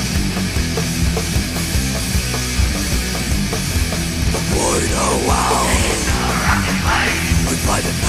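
Death/thrash metal recording: fast drumming under thick distorted guitars, with a higher line bending in pitch coming in over them about halfway through.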